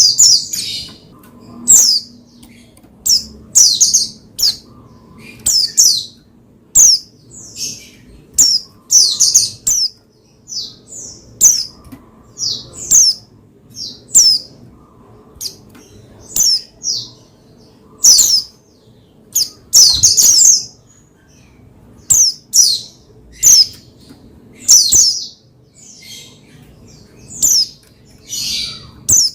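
Pleci (white-eye) chirping: short, sharp high-pitched chirps and squeaky notes in quick separate bursts, about one every second, with brief pauses between them.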